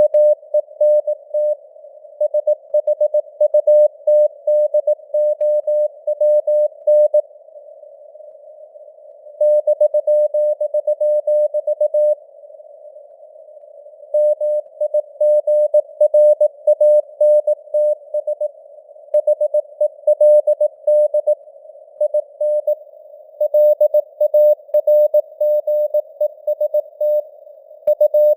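Morse code (CW) sent at 18 words per minute as a single mid-pitched tone keyed on and off in dots and dashes, over a narrow band of simulated radio hiss. The keying stops for about two seconds twice, about a quarter of the way in and again a little before halfway.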